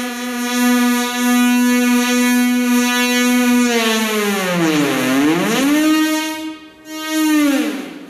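Moog Mother-32 semi-modular analog synthesizer sounding one sustained, buzzy, harmonic-rich tone. The tone holds a steady low pitch for a few seconds, then slides down and back up in pitch. It briefly dulls and dips in volume, then slides down again near the end.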